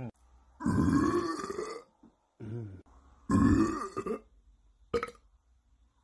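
A man burping: two long, loud burps of about a second each, with a shorter, quieter burp between them.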